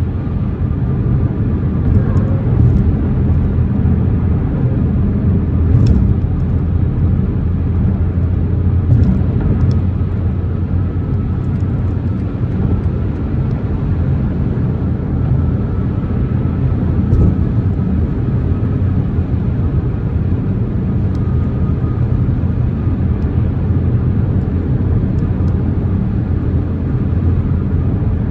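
BMW M4 Competition driving at a steady pace: a steady low rumble of engine and road noise, with a few light knocks.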